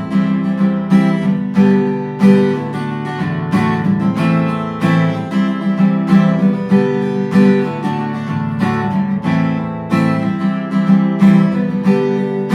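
Fender CD-60 V3 steel-string dreadnought acoustic guitar being strummed unplugged, a steady rhythm of chords ringing out several strokes a second.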